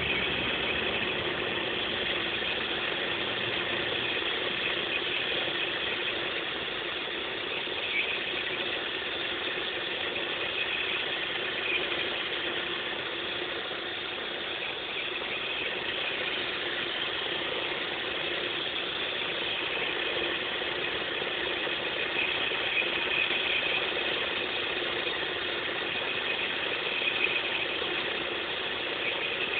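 Opel Vectra B's X20XEV 2.0-litre 16-valve four-cylinder engine idling steadily, with a strange noise from the engine that the owner is trying to track down. A few brief sharper ticks stand out, about eight, twelve and twenty-seven seconds in.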